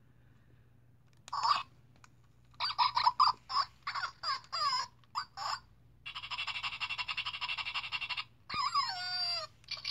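Zhu Zhu Puppies electronic toy dog playing its recorded sound effects through its small speaker as it is handled: a short yap about a second in, a run of quick yips, a rapidly pulsing sound for about two seconds, then a falling whine near the end.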